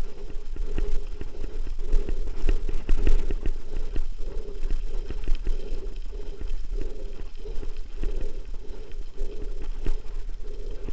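Mountain bike riding down a gravel track: tyres crunching over loose stones and the bike rattling, with many irregular knocks from bumps.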